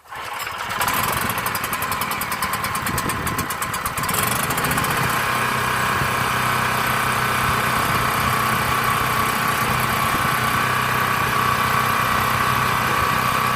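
Large open-frame portable gasoline generator's engine starting: it fires right at the start, runs unevenly for about four seconds, then settles into a steady run that is pretty quiet for a big generator.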